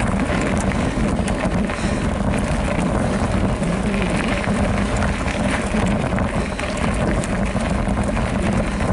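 Wind rushing over the microphone as a Specialized Rockhopper Comp mountain bike rolls down a loose gravel track, tyres crunching over stones with scattered clicks and rattles from the bike.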